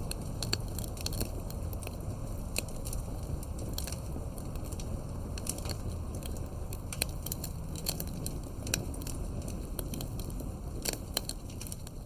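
Wood fire burning: a steady low rush of flames with frequent, irregular sharp crackles and pops from the burning wood.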